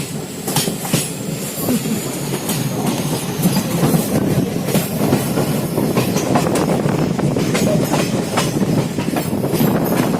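Passenger train running along the track: a steady rumble with the irregular clickety-clack of wheels over rail joints, and a faint thin squeal from the wheels in the first few seconds.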